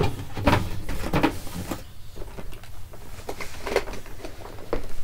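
Handling noises: a few knocks and scuffs with some rustling as a boxed toy car is set down and things are moved about.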